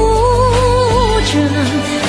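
A Chinese-language song: a singer holds one long note with vibrato over sustained backing chords, then drops to a lower note near the end.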